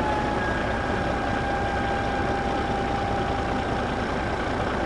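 A vehicle engine running steadily, with a faint, steady whine over the engine noise.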